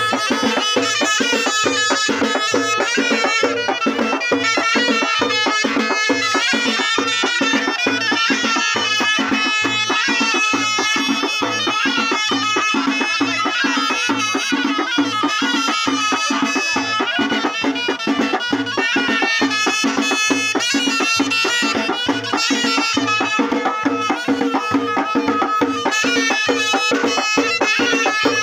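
Moroccan ghaita (shawm) playing a wavering melody over a steady beat of hand-played frame drums: live aita gharbawiya wedding music.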